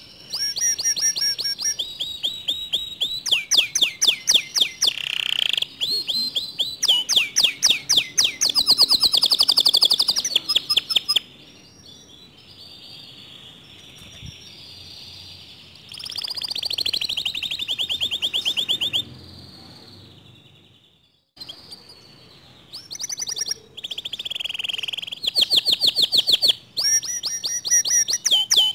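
Canary singing in long phrases of fast, rolling trills and rapidly repeated chirps, with short quieter pauses between the phrases. The song is of the kind used to provoke other canaries into singing.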